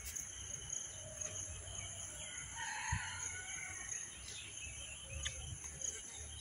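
Outdoor ambience of a steady high-pitched insect drone, with a bird calling once for about a second near the middle.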